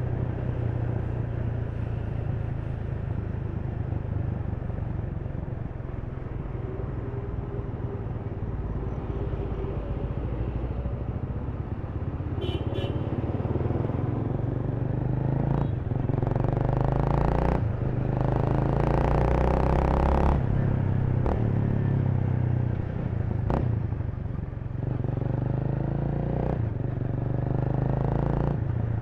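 Honda Rebel 300's single-cylinder engine running underneath the rider at city-riding speed, its pitch stepping up and down with throttle and gear changes. It gets louder and noisier for a few seconds about halfway through.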